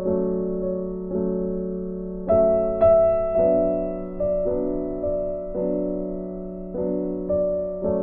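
Background music: slow, soft piano chords, a new chord struck about once a second and left to ring and fade.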